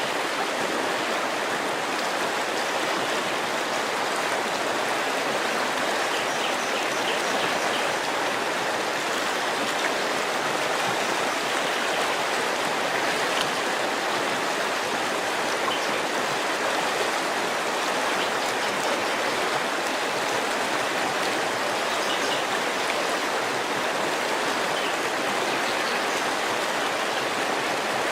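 River water flowing, a steady rushing and babbling of the current.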